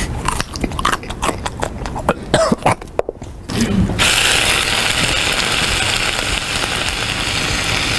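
Loud crunching bites into a raw carrot: a quick run of sharp, irregular crunches for about three seconds. A steady hiss takes over about four seconds in.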